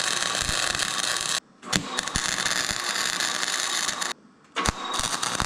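Electric arc welder running in short weld runs on a caster wheel mount: a steady hiss that stops suddenly about one and a half seconds in and again after about four seconds, restarting after each short silence.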